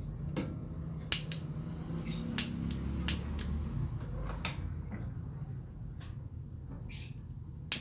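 A long-nosed utility lighter clicked several times at a gas range burner: sharp, irregularly spaced clicks. The burner does not catch because the gas has not been turned on yet.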